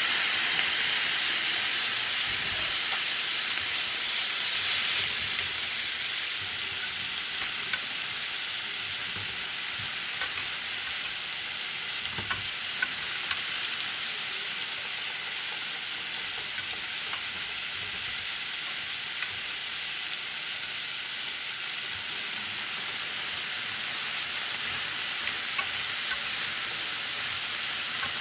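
Snap peas, carrots and bell pepper sizzling in a hot stainless steel skillet as they are stir-fried: a steady hiss with scattered sharp clicks.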